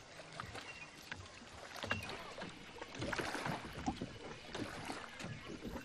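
Water sloshing and lapping around a small wooden boat moving through calm water, with scattered light knocks and a louder splash about three seconds in.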